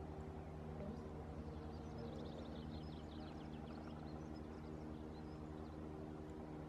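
Distant helicopter hovering with an underslung load, a faint steady drone; small birds chirp briefly about two seconds in.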